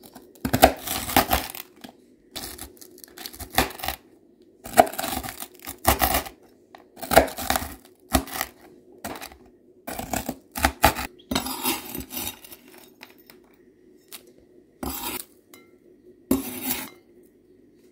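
Chef's knife chopping a slice of dried bread into croutons on a wooden cutting board: a series of cuts, each ending in a knock of the blade on the board, about one a second. Fewer, more scattered cuts and scrapes follow near the end.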